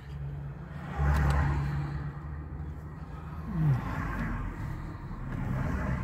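Car engine and road noise heard from inside the cabin while driving, getting louder about a second in as the car accelerates.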